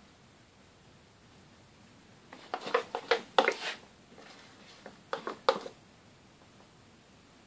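A spatula scraping and knocking against the inside of a bowl of liquid mould rubber, as rubber is scooped out. There are two short clusters of scrapes and knocks, about two and a half seconds in and again about five seconds in.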